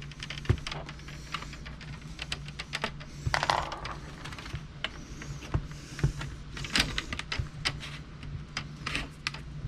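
Irregular small plastic clicks and taps from handling and prying at a Lenovo IdeaPad 320 laptop's screen assembly, over a low steady hum.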